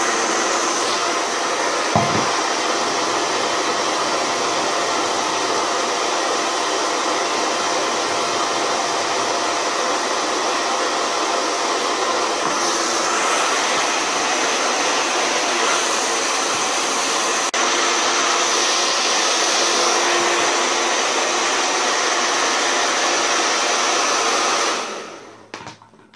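Handheld hair dryer running steadily, a rush of air with a thin high whine, as it blow-dries hair over a round brush. It is switched off near the end and dies away over about a second.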